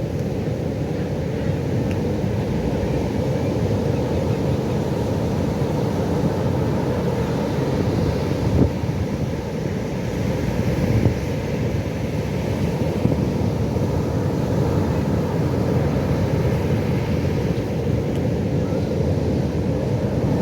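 Pacific Ocean surf: a steady low rumble of waves, with two brief louder thumps about nine and eleven seconds in.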